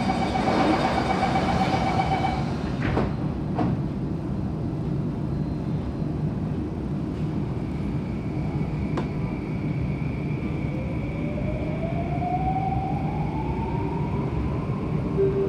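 Door-closing warning tone on a Bombardier C951 metro train, ending as the doors shut with two knocks about three seconds in. Under a steady low rumble, the train pulls away and its traction motor whine rises in pitch from about ten seconds in.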